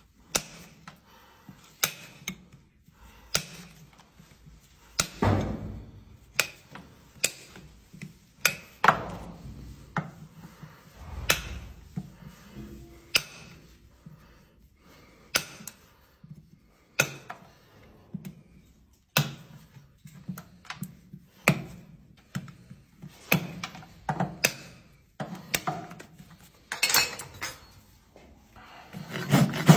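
Sharp metallic taps and clicks of farrier's hand tools on the shoe nails in a horse's hoof, about one a second, some ringing briefly. Near the end a rasp starts scraping across the hoof.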